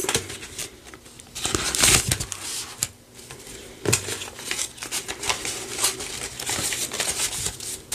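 Paper banknotes rustling and crinkling as a stack of dollar bills is gathered and fanned through by hand. A louder rustle comes about two seconds in, then a run of soft flicks, a few a second, as the bills are leafed through one by one.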